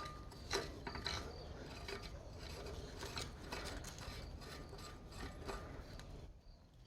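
Hand tool ratcheting and clicking in irregular strokes, metal on metal, as an injector sleeve removal tool is worked in a Caterpillar C15 diesel cylinder head.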